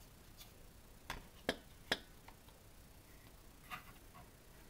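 Three light, sharp clicks about half a second apart, then a softer one near the end: a plastic craft paper punch being handled and set down.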